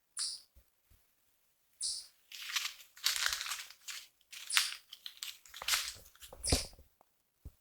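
Irregular rustling and crunching, loudest in the middle, with a short high chirp at the start and another about six and a half seconds in.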